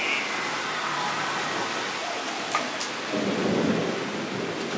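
Steady rain falling onto a shallow puddle on the ground, with scattered small drip ticks. The sound grows fuller and deeper about three seconds in.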